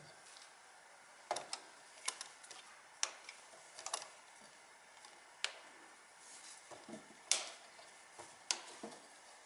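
Irregular sharp clicks and knocks, about seven in all, from metal hand tools and parts being handled during engine repair work.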